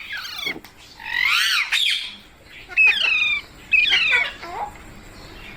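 Green parrot (rose-ringed parakeet) squawking: about four loud calls with pauses between, each sliding up and down in pitch.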